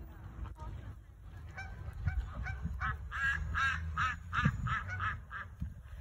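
Canada goose honking: a quick run of about a dozen short honks, starting about a second and a half in.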